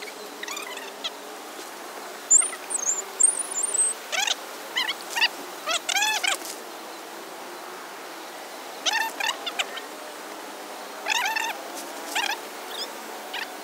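Short, high, pitch-bending animal calls in several bouts, with a thin, very high warbling call about two seconds in.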